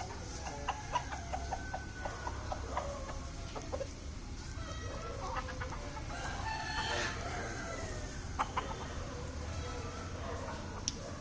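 Rooster and chickens clucking in short, sharp calls, with a longer crow about halfway through.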